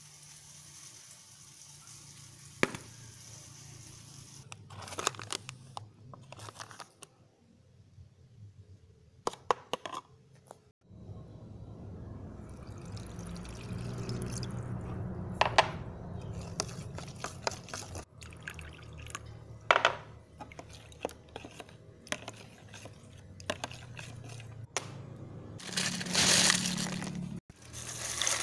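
Kitchen preparation sounds: water poured into a plastic tub of flour and stirred with a metal spoon, with sharp clinks and taps of utensils now and then. Near the end, liquid poured from a metal pot splashes into a tray.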